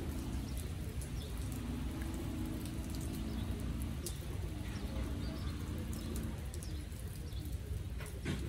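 Rain falling onto standing water and the surroundings, a steady patter with scattered drip ticks and one sharper drip near the end. A low droning tone sits underneath and stops about six seconds in.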